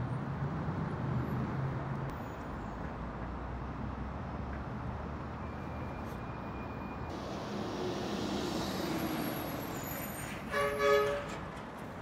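Steady city street traffic noise, with a vehicle horn sounding briefly near the end.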